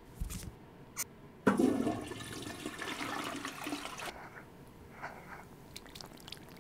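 Toilet flushing with its water supply shut off to empty the tank: a click, then a sudden rush of water about one and a half seconds in that drains away and stops a couple of seconds later, followed by faint clicks.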